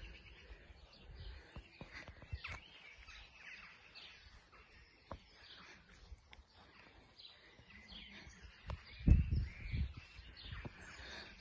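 Birds chirping in the background, with a few faint clicks. A short, loud low rumble about nine seconds in.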